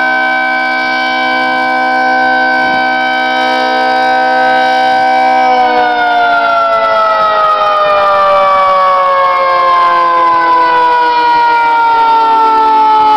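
1973 Federal Sign and Signal 2T22A dual-tone outdoor warning siren sounding a loud, steady chord, then, a little under halfway through, starting to wind down with its pitch falling slowly. The recordist thinks its high-tone intake sounds blocked.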